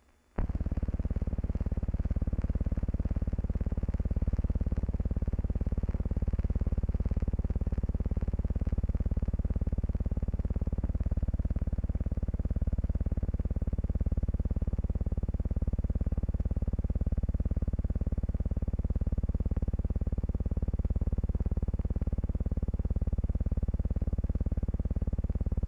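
A steady low drone with a hiss on top, starting abruptly and holding at an even level throughout.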